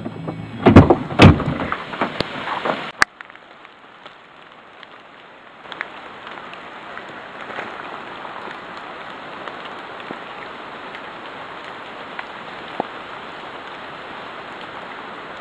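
Loud knocks and thumps of the camera being handled in the first three seconds, then a steady light patter of rain with scattered drips.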